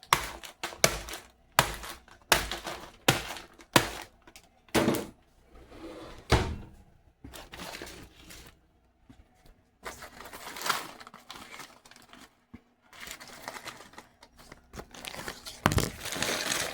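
A paper microwave popcorn bag being pulled and torn open, giving irregular crinkling, tearing and sharp paper snaps.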